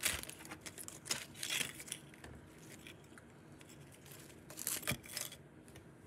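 A few short rustles and crinkles, like small toys and plastic packaging being handled, about a second in and again near the end.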